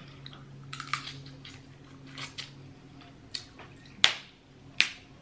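Close-miked eating sounds: scattered wet mouth clicks and smacks, with two louder sharp smacks near the end, over a steady low hum.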